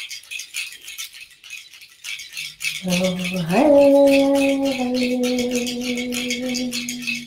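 A handheld seed-pod rattle shaken in a quick, steady rhythm. About three seconds in, a woman's voice joins with one long wordless sung note that slides up in pitch and then holds, louder than the rattle.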